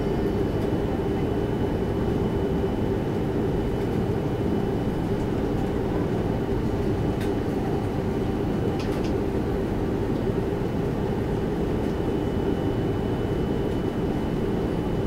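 Steady cabin noise inside an Airbus A330-300 airliner: an even rumble of the engines and airflow, with a faint constant high tone, and a few light ticks about seven and nine seconds in.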